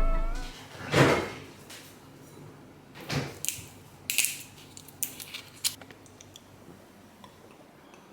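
Background music fading out, then a single thump about a second in, followed by a few scattered knocks and clicks of objects being handled.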